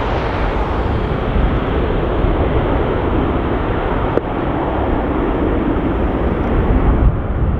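Airbus A330-300 jet engines at takeoff power on departure, a steady, loud rushing noise heavy in the low end, with wind buffeting the microphone. A single short click about four seconds in.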